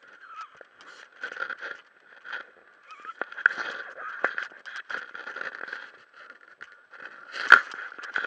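Handling noise from a hand-held camera: scraping and rubbing on its casing with scattered clicks and knocks, the loudest knock about seven and a half seconds in.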